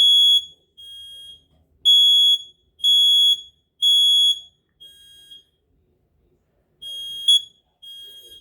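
Kidde smoke alarm under test, sounding its high-pitched fire-alarm beep in groups of three, about one beep a second, with fainter beeps from the interconnected alarms elsewhere in the house. The beeping breaks off for about a second and a half past the middle, then comes back fainter.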